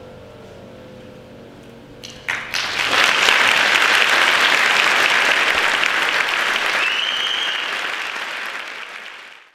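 The last chord of a grand piano piece rings and dies away, then audience applause breaks out about two seconds in, grows loud, and fades out near the end. A short rising whistle from the audience sounds within the applause.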